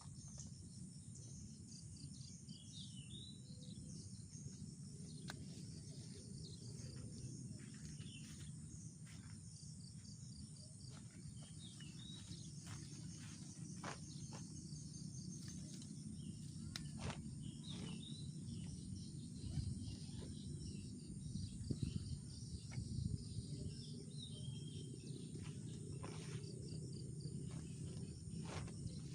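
Tropical forest ambience: a steady high drone of insects, with birds chirping briefly now and then over a low steady rush. Scattered sharp ticks and a few louder knocks come after the middle.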